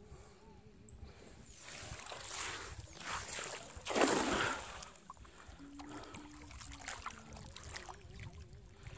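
Water splashing beside a small boat on a river: a few rushing splashes that build to one loud splash about four seconds in.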